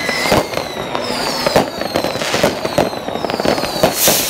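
Many fireworks and firecrackers going off at once: near-continuous bangs and crackling, with a few high whistles falling in pitch and one louder bang near the end.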